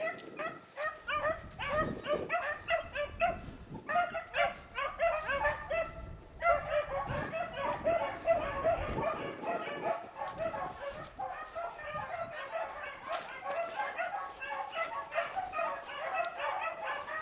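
A pack of beagles baying together while running a rabbit, several hounds crying at once in a dense chorus of overlapping high calls. The chorus breaks off briefly twice in the first several seconds and then runs on unbroken.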